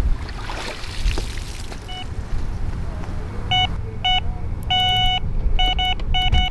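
Electronic carp bite alarm sounding a take: a single beep, then bursts of beeps that come quicker, with one longer held tone, as a fish runs with the line. A steady low wind rumble on the microphone lies underneath.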